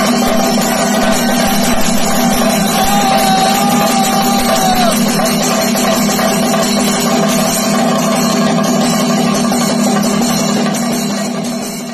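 Thayambaka on chenda drums struck with sticks, with ilathalam hand cymbals, in dense, continuous rolls. The sound fades out near the end.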